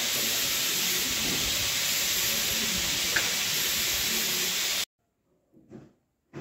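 Meat sizzling on a stainless-steel gas grill grate, a steady hiss with one short click about three seconds in. It cuts off abruptly about five seconds in, leaving only two faint short sounds.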